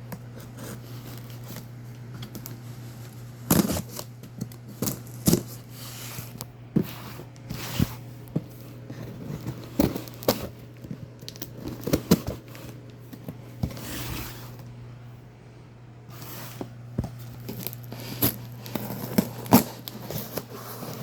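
A knife slicing through packing tape and a cardboard shipping box, with irregular scrapes, clicks, tearing and crinkling of the packaging. A steady low hum runs underneath.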